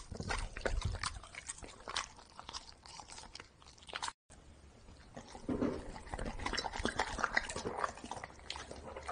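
Golden retriever chewing and smacking on soft red jelly held in gloved hands: quick, irregular wet mouth clicks. The sound cuts out briefly about four seconds in, then more irregular clicks and smacks follow.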